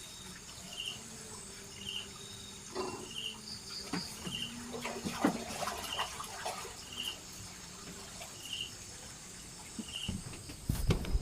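Forest insects: a steady high trill with a short chirp repeating about every second and a half. Scattered light knocks and taps come through in the middle, and a louder rustling noise starts near the end.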